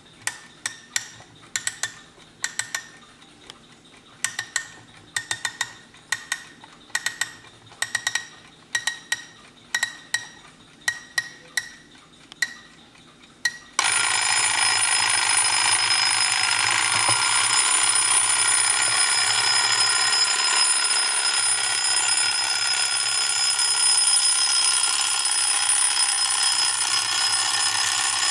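A wind-up mechanical alarm clock gives a run of irregular sharp clicks, some in pairs with a slight ring. About fourteen seconds in, its bell alarm goes off and rings loudly and continuously.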